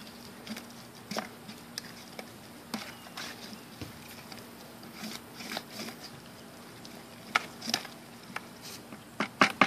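Wooden stick stirring thick meat bait in a plastic bucket, making irregular knocks and clicks against the bucket, with a cluster of louder knocks near the end.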